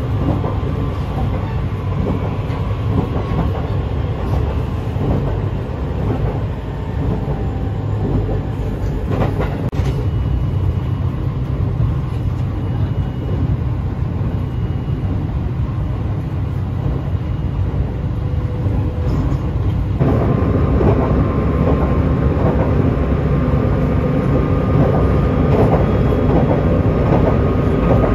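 Running noise inside an E653 series 1100 electric limited-express train at speed: a steady low rumble of wheels on rail with scattered clicks from rail joints, under a faint steady whine from the Hitachi IGBT-inverter traction system. About twenty seconds in, the noise becomes abruptly louder and clearer.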